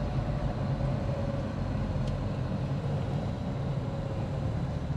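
Steady rumble of a car's engine and tyres on the road, heard from inside the cabin of the moving car.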